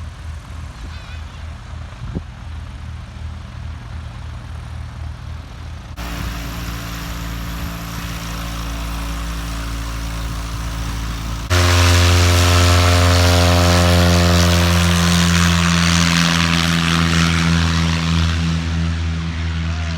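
Small propeller airplane's piston engine: a low, pulsing idle at first, then after sudden changes a much louder, steady engine drone with the rush of the propeller about halfway through.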